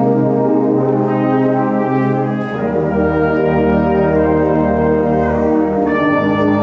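High school concert band playing sustained, brass-led chords; the bass drops to a low held note about two and a half seconds in, and the chord changes near the end.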